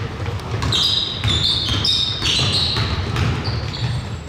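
Basketball shoes squeaking on a hardwood court in quick, overlapping high squeaks, thickest from about one to three seconds in, over the low thuds of a basketball being dribbled, in a large echoing gym.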